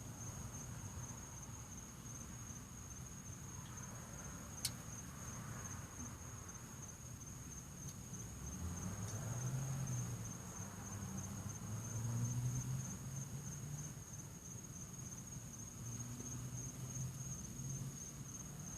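A cricket chirping in a steady, unbroken high trill, with a single sharp click a few seconds in.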